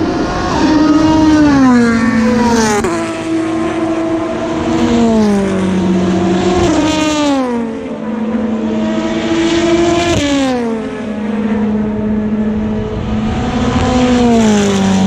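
Endurance race cars passing at speed one after another, several engines overlapping, each engine note falling in pitch as the car goes by.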